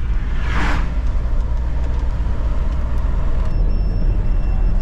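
Steady low road and engine rumble inside a camper van's cab at highway speed, with a brief whoosh about half a second in as an oncoming minibus passes. A little over three seconds in the rumble changes abruptly, and a faint high steady whine comes in.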